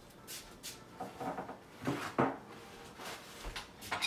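A few soft knocks and rubs of a utensil against a cooking pan, the clearest at about one and two seconds in.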